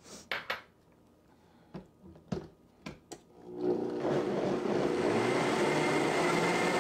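A few knocks and clicks, then about three and a half seconds in a Vitamix blender motor starts and runs steadily, blending a plant-based sauce with fresh thyme leaves just added. It is a short blend, meant to leave small green flecks of thyme in the sauce.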